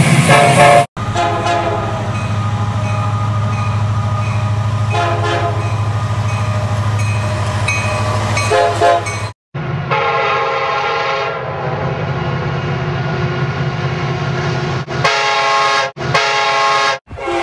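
Diesel freight locomotives passing, their engines rumbling under multi-note air horn blasts. The sound is spliced from several clips, cutting off abruptly about a second in and again about nine seconds in, with short chopped horn bursts near the end.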